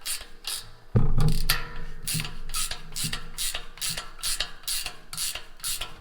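Ratchet wrench clicking in even strokes, about three a second, as the belt tensioner on a disc mower is tightened. A louder knock comes about a second in.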